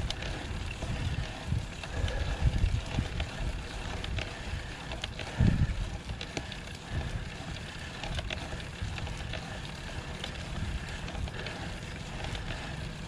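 Gusty wind rumble on an action-camera microphone with faint riding noise from a road bike climbing a steep hill in its lowest gear, and one louder gust about five and a half seconds in.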